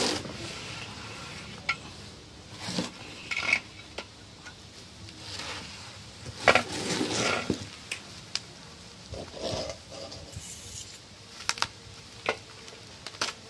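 Plastic bubble wrap and packing film crinkling and rustling, with cardboard scraping, as wrapped parts are pulled out of a shipping box. It comes in irregular bursts with a few sharp clicks, the loudest crackle about six and a half seconds in.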